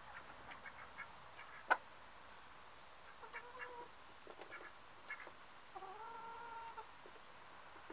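A mixed flock of hens and ducks calling: scattered short clucks, a sharp click a little under two seconds in, and a couple of drawn-out calls, the longest near the end lasting about a second.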